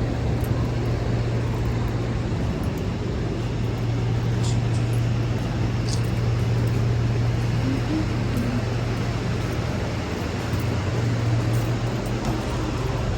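Steady low drone of road and engine noise inside a moving car, with a couple of faint ticks in the middle.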